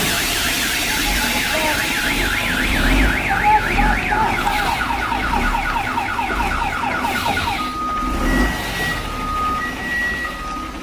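An electronic siren-style horn warbling rapidly up and down, the warble getting faster partway through. Near the end it switches to two steady tones alternating slowly, like a two-tone siren.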